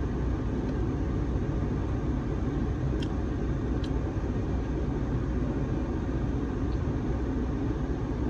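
Steady low rumble of a car, with two faint short clicks about three and four seconds in.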